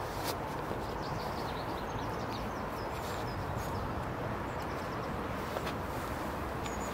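Steady rush of wind and river water, with faint, short, high bird calls scattered through it and a brief click just after the start.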